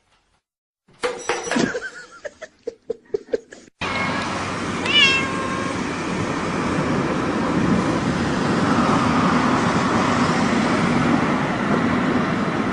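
A domestic cat meowing. About a second in there is a call with a quick run of sharp clicks. Then, after an abrupt change to steady background noise, there is a single meow falling in pitch about five seconds in.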